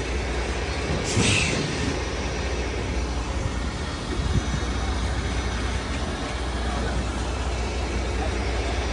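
Peterbilt semi-truck's diesel engine running with a steady low rumble as it slowly pulls an empty step-deck trailer past. A short burst of air hiss about a second in.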